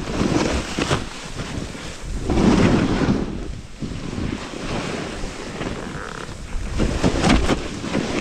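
A snowboard sliding down through snow, the board scraping and hissing across the surface in uneven surges, loudest about two and a half seconds in, with wind rumbling on the action-camera microphone.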